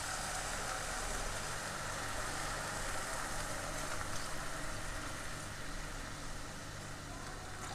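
Steady sizzling hiss of onion and egg frying in a pan on high flame, with a low steady hum underneath.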